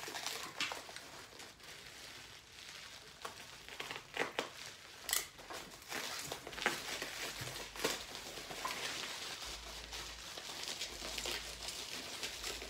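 Plastic bubble wrap crinkling and foam packing peanuts rustling as a bottle is unwrapped and dug out of a shipping box, with irregular sharp crackles.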